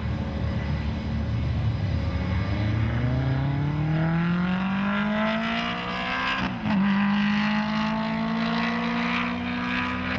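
F/A-18F Super Hornet's twin General Electric F414 jet engines spooling up on the ground, the pitch rising steadily for a few seconds. After a brief dip about six and a half seconds in, the engines hold at a higher, louder, steady pitch.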